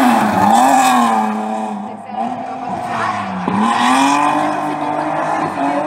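Rally car engine revving hard under acceleration away from a corner, its pitch falling and climbing through gear changes, with a sharp drop about three and a half seconds in before it climbs again.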